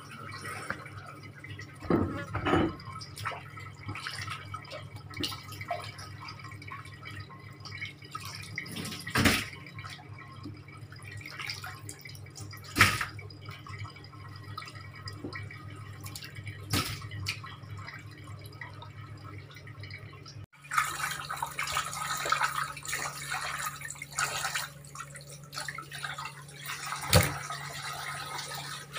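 Cut fish pieces being rinsed by hand in a basin of water, with scattered splashes and knocks over a low steady hum. About twenty seconds in, running tap water and splashing in a steel sink take over.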